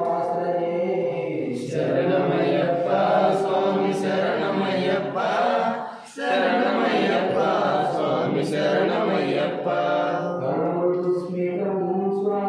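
A group of voices chanting a devotional song to Ayyappa in chorus, on long held notes, with a brief break about six seconds in.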